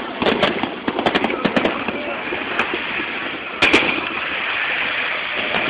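Aerial fireworks bursting: a run of sharp bangs and crackles, the loudest about three and a half seconds in.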